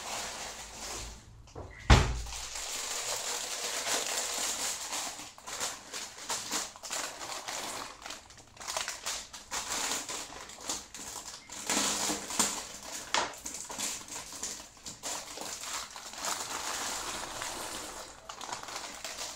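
Plastic bag of dry penne pasta crinkling and rustling as the pasta is poured and shaken into a pot of boiling water, with one sharp knock about two seconds in.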